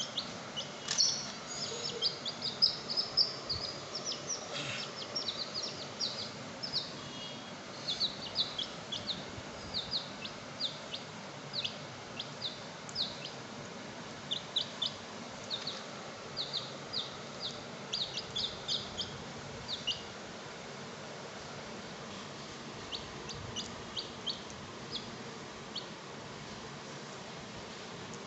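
Baby chicks peeping: runs of short, high cheeps, often several a second, that thin out after about twenty seconds.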